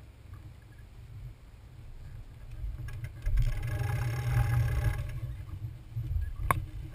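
Wind rumbling on the camera microphone aboard a sailing keelboat under way, with water noise; it swells and fills out about three seconds in, and a single sharp click sounds near the end.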